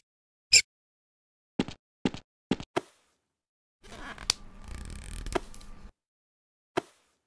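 Animation sound effects: four short clicks in quick succession, then about two seconds of rough noise, then one more click near the end.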